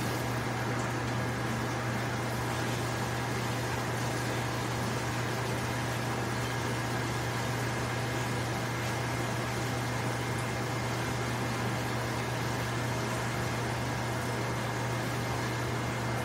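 Large commercial dishwashing machine running: a steady low hum with an even wash of noise over it.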